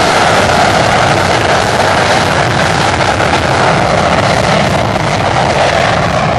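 English Electric Lightning's Rolls-Royce Avon turbojets running at high power with reheat lit during a high-speed taxi run: a loud, steady jet roar.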